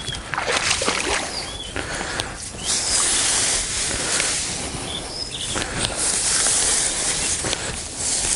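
Water splashing and wet fishing net rustling as the net is hauled and worked at the water's edge, in a series of swishes, with a few short high chirps.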